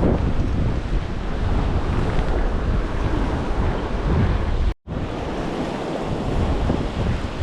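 Strong wind buffeting the microphone over the wash of surf on the shore, a dense rumbling noise that cuts out to silence for a moment about five seconds in.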